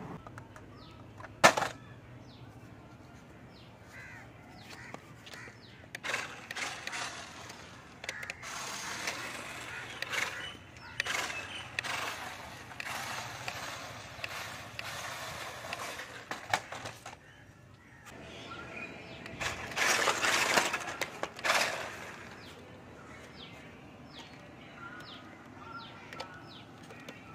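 Small toy RC monster truck driving over paving stones: its electric motor and plastic tyres run in stretches of a few seconds with pauses between. A single sharp click comes about a second and a half in.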